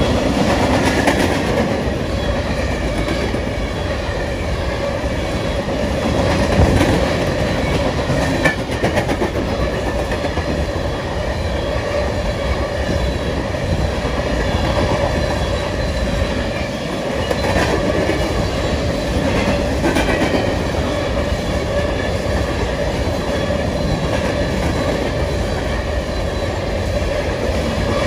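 Empty covered hopper cars of a freight train rolling by, a steady clatter of steel wheels on the rails with a few louder knocks along the way.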